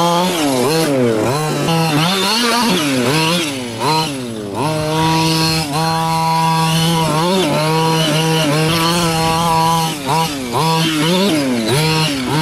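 Losi 5ive-T RC truck's 26cc two-stroke gas engine running at high revs, held at a steady high note for stretches, with its pitch dropping and climbing back several times as the throttle is let off and opened again.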